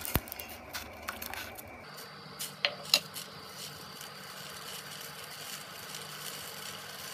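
Metal spoon clicking against a steel pot a few times in the first three seconds while fenugreek and nigella seeds in water are stirred, then the steady faint hiss of the water heating on the stove.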